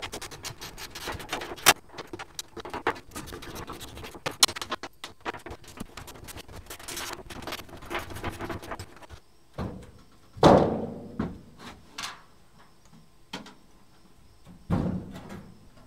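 Hand screwdriver working old sheet-metal screws out of a steel hardtop's frame: a rapid run of small metallic clicks and scraping. It stops about nine seconds in, and two dull thuds follow, one near the middle and one near the end.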